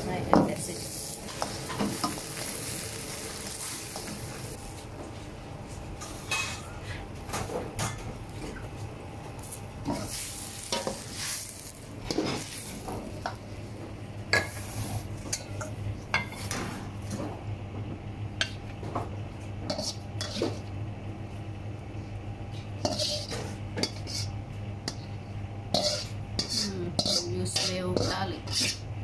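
Stir-frying in a wok: a metal ladle scrapes and knocks against the wok as water spinach is tossed over high heat, with sizzling strongest in the first few seconds. Scattered metal clinks and knocks go on throughout over a steady low hum.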